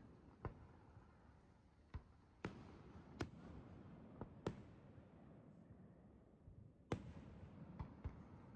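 Distant aerial fireworks shells bursting: about nine sharp reports at irregular intervals, the loudest about a second and a half before the end.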